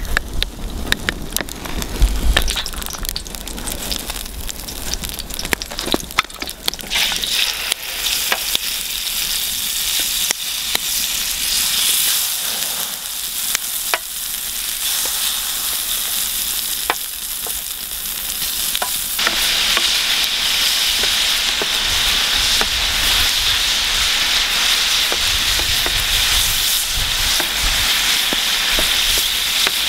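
Squid rings frying in hot oil on a metal baking tray over a wood fire, stirred with a spatula. Crackling and spitting at first, then a steady sizzle that grows louder about two-thirds of the way through.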